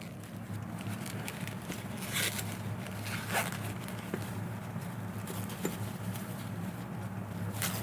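Packing tape being pulled and torn off a parcel, with rustling of the wrapping: a few short rasping rips and small clicks over a steady low hum.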